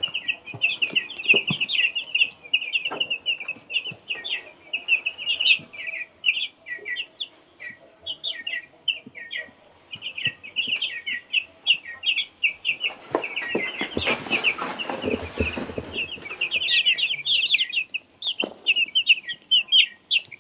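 Birds chirping continuously, many short high falling chirps several a second, with a few knocks and a louder scraping noise about two-thirds of the way through.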